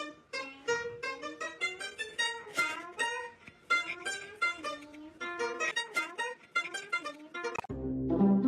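Background music: a plucked-string instrument playing a quick, bouncy melody of short notes. Near the end a louder, lower sound cuts in.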